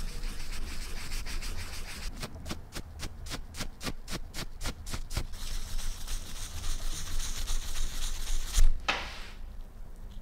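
Steel wool scrubbing a small knurled metal lighter part, scouring oxidation and dirt off it. The rubbing turns into quick back-and-forth strokes, about three or four a second, in the middle, then steady rubbing again with one louder, sharper stroke near the end.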